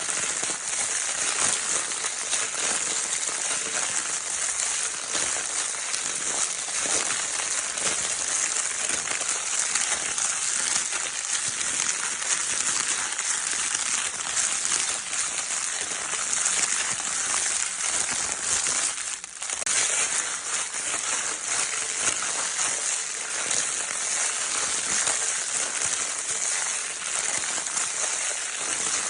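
Crinkle paper of a baby's crinkle toy being crumpled and rustled continuously, a dense steady crackle strongest in the high range, with a brief pause about nineteen seconds in.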